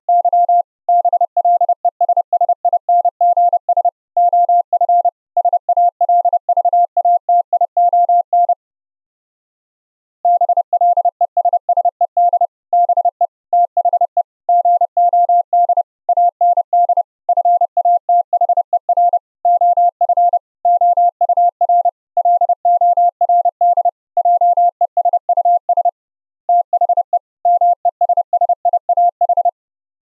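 High-speed Morse code: a single steady tone keyed on and off in rapid dots and dashes by a computer keyer sending a text file, received as Opus-encoded audio streamed over the internet. The keying stops for about two seconds roughly a third of the way in, then resumes.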